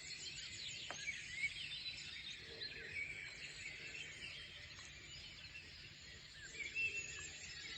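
A dense chorus of many birds chirping at once, with short overlapping high-pitched calls and quick rising and falling notes, over a steady low background noise.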